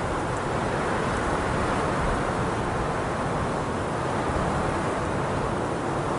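Steady wind blowing, an even rushing noise heaviest in the low and middle range, with no gusts or breaks.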